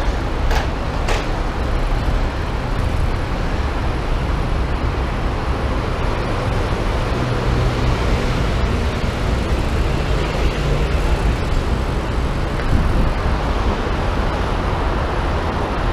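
Steady traffic noise from a six-to-eight-lane road below, a dense wash of passing cars and buses with a heavy low rumble. Two light clicks come shortly after the start.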